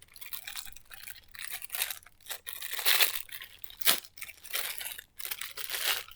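Plastic packaging of a fidget-toy keychain being crinkled and torn open by hand, in irregular rustling bursts with a sharp crackle about four seconds in.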